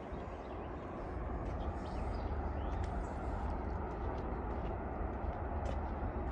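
Steady low outdoor rumble with faint high chirps or ticks now and then.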